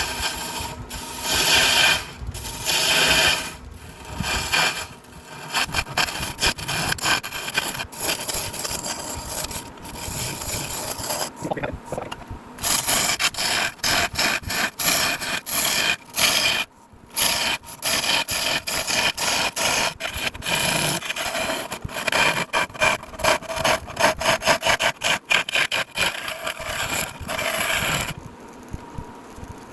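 Square-tip carbide rougher cutting a spinning hickory blank on a wood lathe: a rasping scrape in repeated passes with short breaks, stopping near the end.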